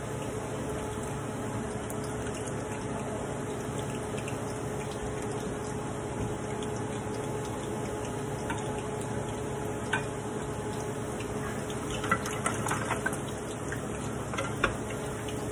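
Oil heating in a frying pan with one breaded shrimp in it as a test piece, sizzling steadily. A few light clicks and rustles come near the end.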